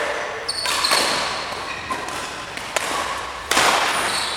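Badminton rally: a series of sharp racket strikes on the shuttlecock, the loudest near the end, each with a short echo.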